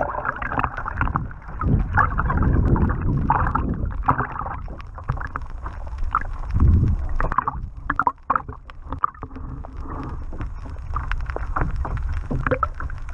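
Muffled rushing and gurgling water heard through a camera submerged beneath a moving kayak, with irregular small knocks and taps against the housing.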